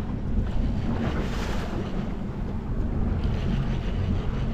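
Wind buffeting the microphone over the wash of waves against a boat's hull, a steady rumble throughout.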